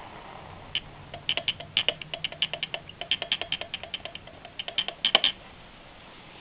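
Railroad telegraph clicking out Morse code in rapid, irregular strings of clicks, starting about a second in and stopping shortly before the end.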